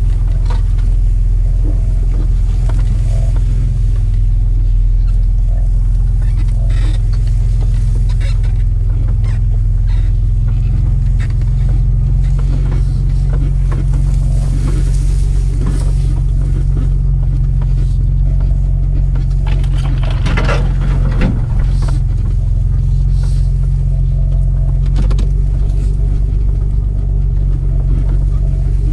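Mitsubishi Pajero's 3.0-litre V6 engine running at a steady low drone, heard from inside the cabin, with scattered knocks and rattles as the 4x4 crawls over rough ground.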